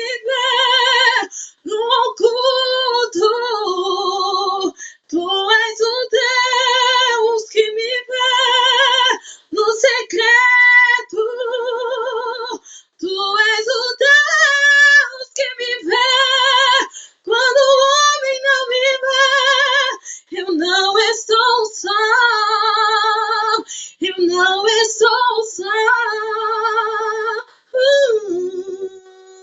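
A woman singing a Portuguese-language gospel song unaccompanied, in phrases of one to three seconds with wavering held notes and short breaks for breath, ending on a long held note.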